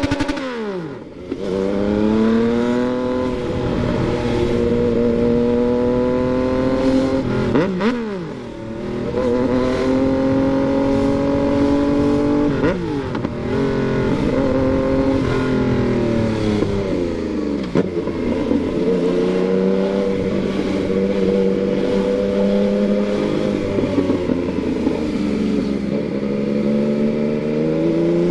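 Yamaha MT-09 inline-three engine pulling under load. The revs climb through each gear and drop sharply at upshifts about a second in, about eight seconds in and about thirteen seconds in. They fall away past the middle, run steadier for a while, and rise again near the end.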